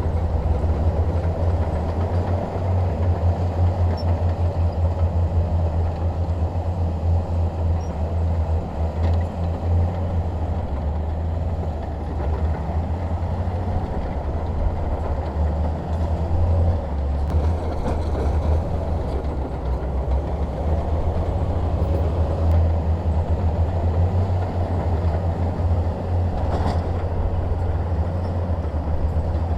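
Bulldozer's diesel engine running steadily under load, a low pulsing rumble, with one brief knock near the end.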